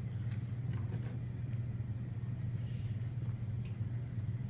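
A steady low hum, with a few faint light clicks of a small plastic fidget spinner and its bearing being handled and pried at.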